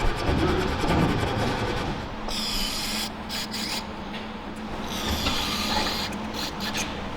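Abrasive rubbing and scraping in repeated strokes, in two spells about two and five seconds in, typical of cleaning brake caliper parts by brushing or sanding.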